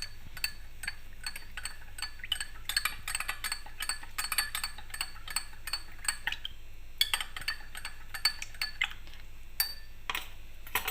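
A spoon stirring a thick honey-and-oregano syrup mixture, clinking rapidly and irregularly against the side of its container, with a short pause near the end.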